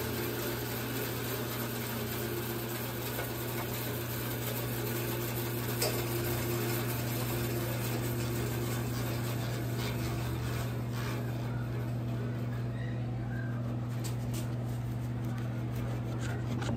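Bandsaw motor running steadily with its blade spinning free and no cut being made; a light knock comes about six seconds in.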